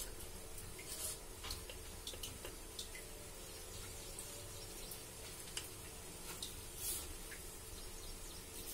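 Pot of curry gravy heating on the stove: a faint steady hiss and low hum with small, irregular ticks and pops as the gravy starts to simmer.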